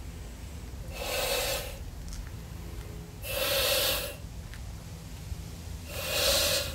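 A man inflating a 35-inch latex balloon by mouth: three loud, rushing breaths, each under a second, about two and a half seconds apart, with quieter gaps between as he blows into the balloon.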